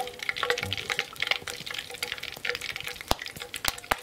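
Shrimp tempura deep-frying in a small pan of oil over a wood fire: a steady crackling sizzle of bubbling oil, with a few sharp louder pops about three seconds in and near the end.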